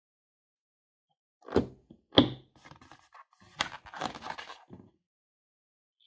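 Hands handling a rubber balloon and scissors over a glass dish: two sharp thumps close together, then a couple of seconds of soft rubbing and scraping of the balloon's rubber.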